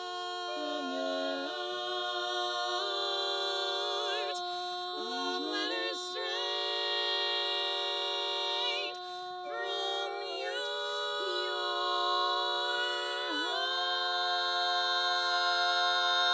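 Women's barbershop quartet singing a cappella in four-part close harmony, holding long sustained chords with a few brief chord changes, swelling louder near the end.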